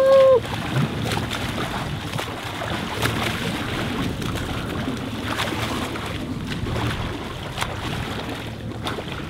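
Open-sea water and wind noise around the escort boat, with a few sharp splashes from two swimmers' front-crawl strokes alongside. A brief pitched shout at the very start.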